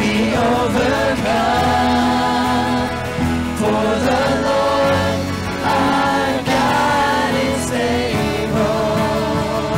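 Live church worship band playing a praise song: several voices singing held, wavering notes together over the band's instruments.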